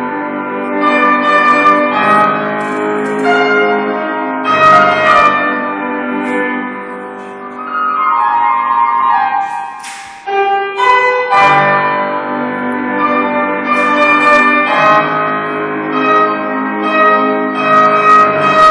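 A man singing in a classical, operatic style with grand piano accompaniment: long held notes with wavering pitch, broken by short pauses for breath.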